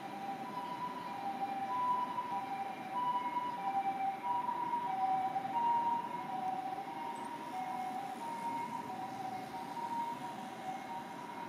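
Japanese ambulance's two-tone hi-lo siren (pee-po, pee-po), a higher and a lower note alternating about every 0.6 s. It is loudest a few seconds in, then fades as the vehicle moves away.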